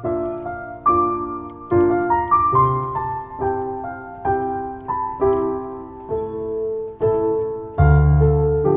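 Solo piano playing a slow, gentle piece, a note or chord struck about every second and left to ring, with a deep bass note coming in near the end.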